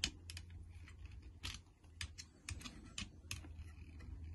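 A run of irregular small, faint clicks and ticks as a thread is cut by hand with pliers into a freshly drilled hole in a plastic RC car part, over a steady low hum.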